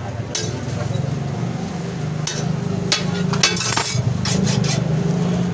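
Metal spatula scraping and tapping on a flat steel griddle (tawa) while a burger is worked and lifted, a run of short scrapes and clicks with a longer scrape about three and a half seconds in. A steady low hum runs underneath.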